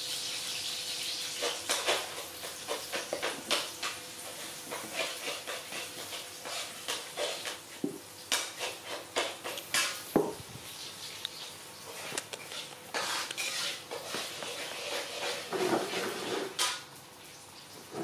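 Irregular clatter of light clinks and knocks, with a few louder, longer sounds around the middle and near the end.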